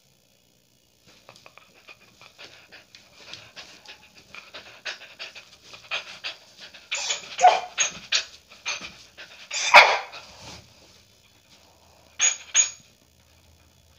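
Beagle panting in rapid short breaths that build in loudness, broken by a few louder yips about halfway through and two short ones near the end.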